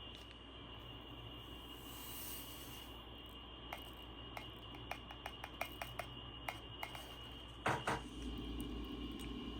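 Light clicks and clinks of small hard objects, about a dozen spread over a few seconds, then two louder knocks close together. A faint steady high whine sits under everything, and a low rumble rises near the end.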